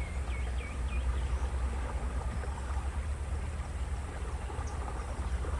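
A tour boat's motor running steadily as a low rumble, with a few faint high chirps in the first second.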